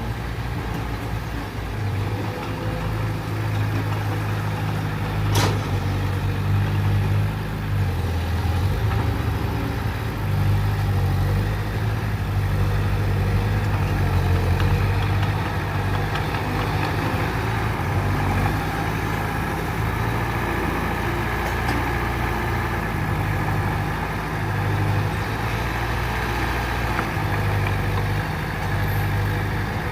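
Heavy diesel engine of earthmoving machinery running steadily, its low hum swelling and easing with load, with one sharp click about five seconds in.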